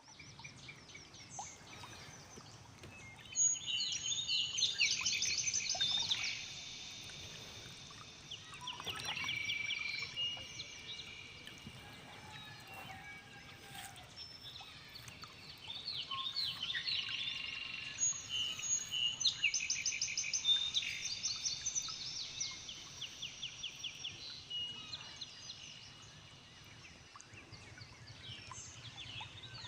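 Several birds chirping and trilling in quick repeated notes, with two busy spells, about four seconds in and again about eighteen seconds in.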